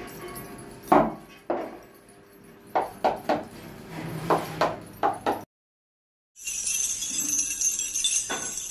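Scattered sharp metal clinks and knocks, then, after a brief dropout, a dense continuous jingling of many small metal pieces.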